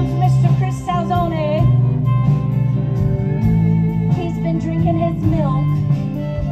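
Live band playing: bass and guitars under a wavering melody from a wind instrument, with some singing.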